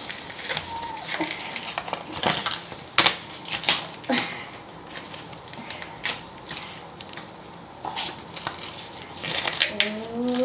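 Fresh green corn husks being torn and stripped off the cobs by hand: an irregular run of sharp rips and crackles, with a few louder tears around three to four seconds in.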